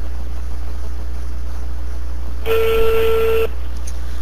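Telephone ringback tone heard down the phone line: one steady tone about a second long, midway through, over a constant low hum. It signals that the called phone is ringing and has not been answered.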